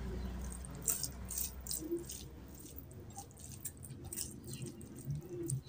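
Soft, irregular wet clicks and squelches of bare fingers kneading curry-soaked rice on a plate.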